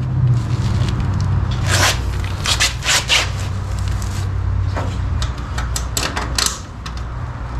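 Irregular clicks, knocks and scrapes of parts being handled and screwed together as a universal radiator fan shroud is fitted, over a steady low hum.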